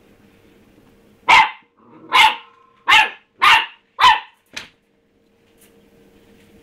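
A puppy barking five times in quick succession, about two a second, then one shorter, softer bark: barking at his empty food bowl.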